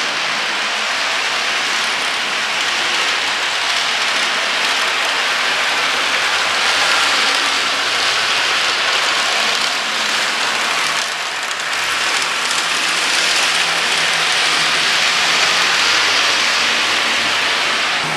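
HO scale model train running along the layout's track, its wheels and motor making a steady hiss.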